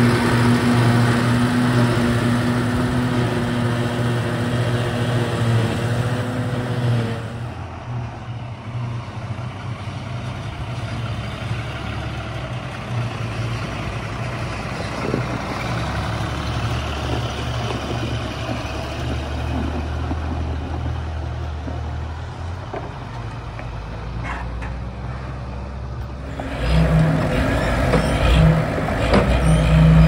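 John Deere 6710 self-propelled forage harvester running steadily at working speed as it blows chopped grass silage into a trailer. After a cut about seven seconds in, a New Holland 8160 tractor with a silage trailer runs with a quieter, lower hum. About three seconds before the end, a Clark Michigan 35B wheel loader's engine revs as it works the silage pit.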